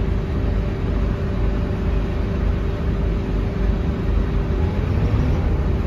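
Scania K230UB city bus's five-cylinder diesel engine running, a steady low rumble heard from inside the passenger cabin, with a faint steady tone over it that stops near the end.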